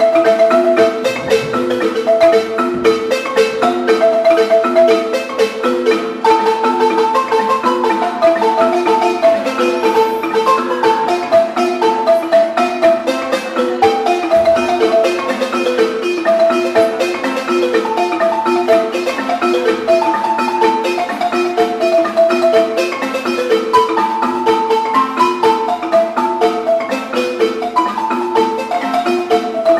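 Two balafons, West African xylophones with wooden keys over gourd resonators, played together with mallets: a fast repeating low pattern runs under a higher melody line.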